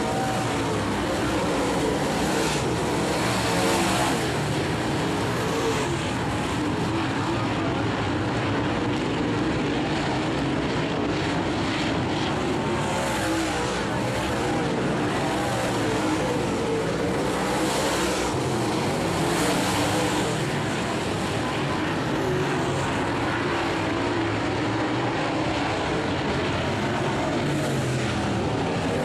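Dirt-track race cars running laps at racing speed, their engines a continuous loud drone that wavers in pitch and swells several times as the cars come past.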